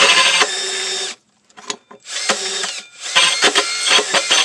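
Cordless drill spinning a saw attachment against quarter-inch plywood. The cut stops about half a second in, the tool runs on more quietly and stops about a second in, then it is run in short stop-start bursts. The saw attachment has worked loose and needs tightening.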